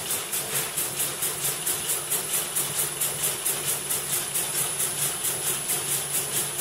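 Needle loom weaving Royal Air Force rank braid, running with a fast, even mechanical beat of about five strokes a second over a thin, steady high whine.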